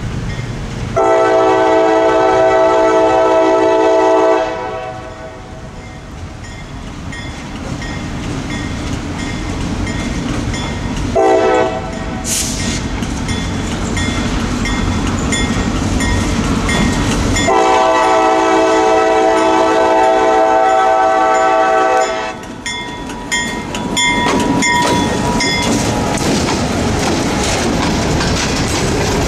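Freight locomotive's multi-chime air horn sounding at a grade crossing: a long blast, a brief toot about ten seconds later, then another long blast, with the engine's rumble growing between them. In the last seconds the hopper cars clatter past, wheels clicking over the rail joints.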